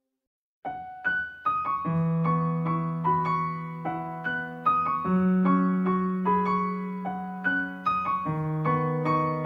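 Background piano music, a gentle melody over held bass notes, starting a little under a second in after near silence.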